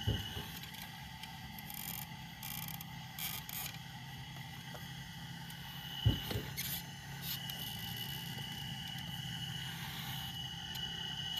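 Radio-controlled excavator digging: a steady low motor hum, with the bucket scraping through soil and a thump just after the start and again about six seconds in.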